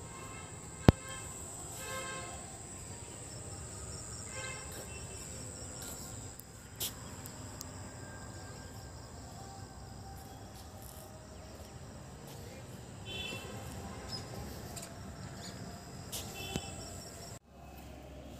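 Steady high-pitched insect drone, like crickets, with a few short calls over it and one sharp click about a second in. The drone cuts off abruptly near the end.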